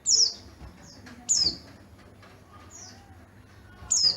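White-eye (pleci dada kuning, yellow-breasted) calling: three loud, short, high notes, each falling in pitch, with fainter notes of the same shape between them.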